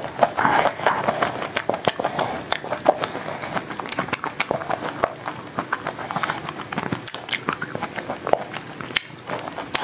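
Close-miked chewing of a chocolate-coated ice cream bar: the crisp chocolate shell crunching in many small irregular cracks, mixed with wet mouth sounds.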